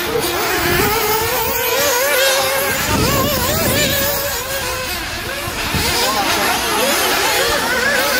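Several nitro RC off-road cars' small glow-fuel two-stroke engines running at once, their high whines rising and falling as they accelerate and back off around the track.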